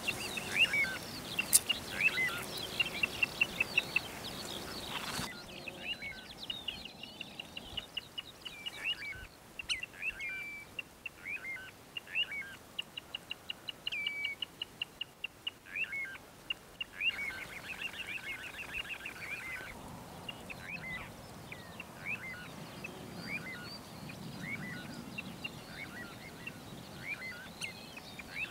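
Several birds calling with many short chirps and whistles that overlap, and a fast, even trill about twelve seconds in. The background changes abruptly a few times.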